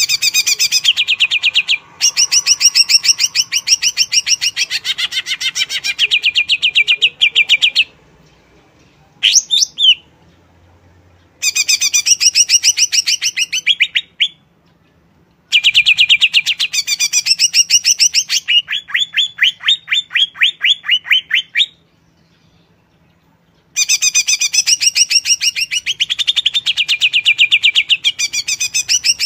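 Greater green leafbird (cucak ijo) singing: phrases of rapid, evenly repeated high chattering notes, each lasting one to six seconds, broken by short pauses.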